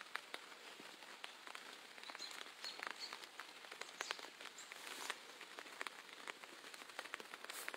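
Light rain pattering faintly, with many small irregular ticks of drops.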